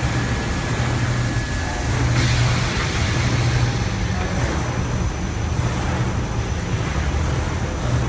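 Automatic carpet washing machine running, its row of rotating scrub brushes and water nozzles working over a wet rug: a steady rushing noise over a low motor hum.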